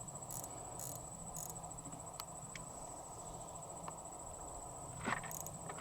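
Crickets trilling steadily at a high pitch, with a few short sharp sounds near the end.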